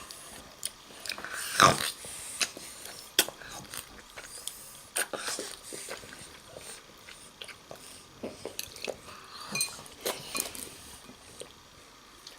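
Someone eating tonkotsu ramen: irregular chewing and mouth noises with scattered sharp clicks.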